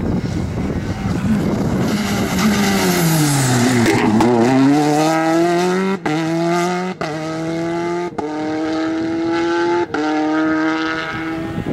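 Peugeot 208 R5 rally car's turbocharged 1.6-litre four-cylinder engine at full effort: the engine note falls as the car slows into a bend about four seconds in, then climbs again as it accelerates away, with four quick upshifts, each a brief cut in the sound.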